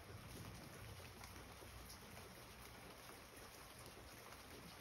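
Near silence: faint steady background noise with a few faint ticks.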